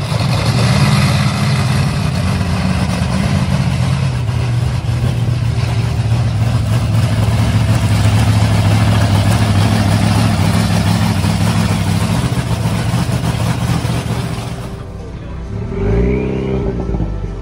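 A monster truck's engine running loudly and steadily with a deep, rough note. Near the end, a pickup truck's engine revs up and back down a couple of times as it pulls away.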